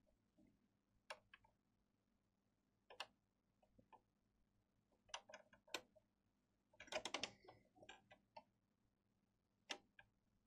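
Near silence with a few faint, scattered clicks and small taps from hand soldering at the bench, a soldering iron tinning circuit-board pads, over a faint steady low hum. A short cluster of clicks comes about seven seconds in.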